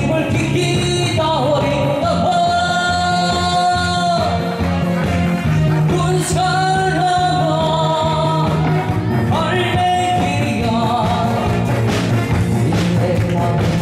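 A singer holding long, bending notes over an instrumental accompaniment with a steady bass and beat: a live pumba-style song performance.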